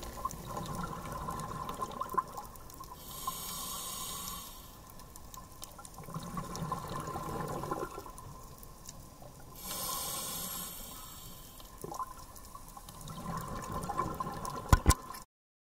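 Scuba diver breathing through a regulator underwater: a hissing inhale followed by a bubbling exhale, twice over, then two sharp knocks before the sound cuts off.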